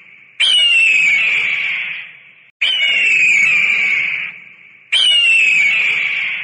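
A bird of prey's harsh, descending scream, repeated three times about every two seconds. Each scream starts suddenly and fades out, and all three calls are identical.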